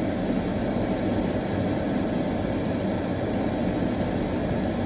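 Car engine and road noise heard from inside the cabin. It is a steady, even noise that stays constant throughout, as the car moves slowly out of a junction.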